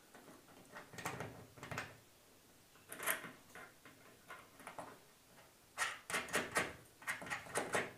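Hands working a ceiling fan's mounting bracket into place against the ceiling and turning its fixing by hand: irregular clicks, knocks and rustles of plastic and metal, with a quick run of clicks in the last couple of seconds.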